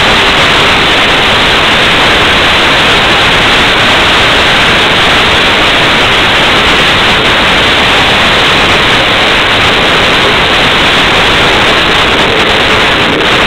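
Loud, steady static-like hiss with no beat, tone or voices standing out.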